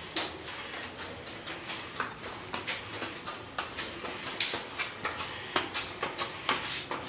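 Footsteps and shoe scuffs on stone stairs climbing a narrow stairwell: short, irregular scrapes and taps, about two or three a second.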